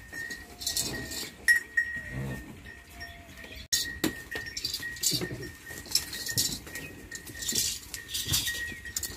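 Farm livestock calling: a short low call about two seconds in and another around five seconds. Behind them run a constant thin high whine and repeated high, hissy chirps.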